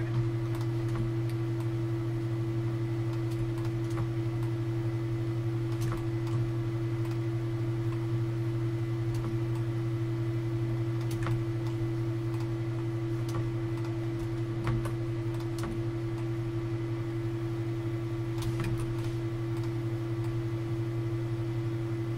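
A steady low hum with sparse, faint clicks of a computer mouse and keyboard.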